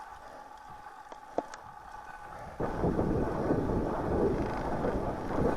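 Wind rumbling loudly on the microphone, starting suddenly about two and a half seconds in, after a quieter stretch broken by a sharp click.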